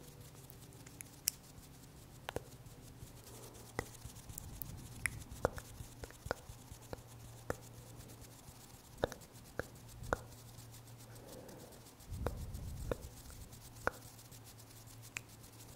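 Close-up ASMR hand sounds: fingers tapping and rubbing near the microphone, giving scattered sharp clicks over a low steady hum, with a short rubbing rush about twelve seconds in.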